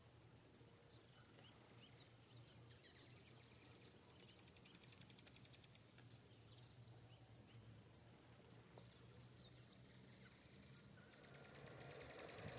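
Faint outdoor ambience: short high bird chirps every second or two over a rapid, high insect trill, with a faint low steady hum beneath.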